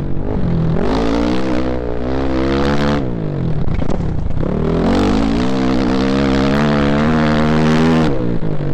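Off-road dirt bike engine under throttle on a trail ride. Its pitch climbs, drops sharply about three seconds in, climbs again and holds, then falls off again near the end, with rushing wind and trail noise underneath.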